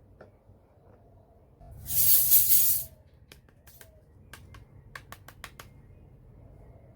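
A loud hiss lasting about a second, then a quick string of small sharp clicks: handling noises while unboxing a miniature toy kitchen set.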